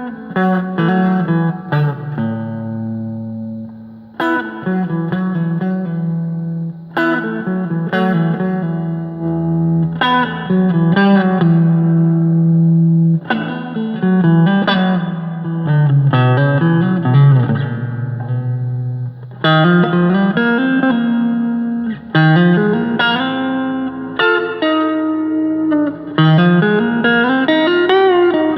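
Agile TC 625 electric guitar played clean with a little reverb: ringing notes and chords with several string bends that glide up and back down in pitch.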